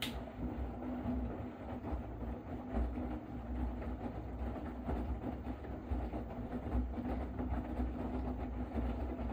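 LG F4WV512S0E front-loading washing machine mid-wash, its drum tumbling a load of wet bedsheets: a steady motor hum over the rumble and swish of the laundry turning.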